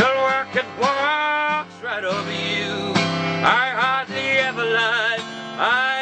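Stanford acoustic guitar strummed steadily, with a man singing over it in phrases; the sung lines come as held, sliding notes rather than clear words.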